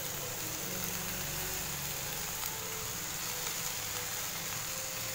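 Steady hum of an electric glass-top cooktop with faint sizzling from the pan of shallots, chillies and tomato as fresh coriander and mint leaves go in on top.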